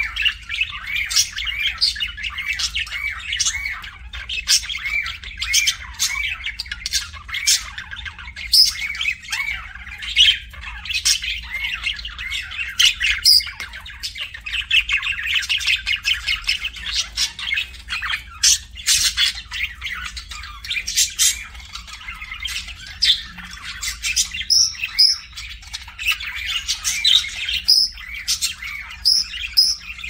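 Several budgerigars chattering and warbling without pause: rapid strings of short chirps, broken often by sharp squawks.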